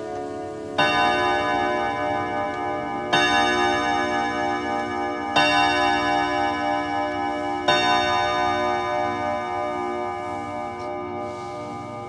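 Kienzle longcase clock's hammers striking its steel rod gongs four times, about two seconds apart, each strike ringing on and overlapping the next before fading away.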